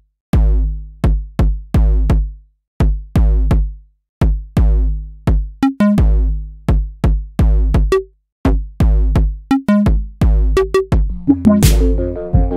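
Electronic instrumental beat: deep drum-machine kicks with decaying bass and short pitched synth notes in an uneven rhythm. Near the end a fuller layer of held synth chords and a crash comes in.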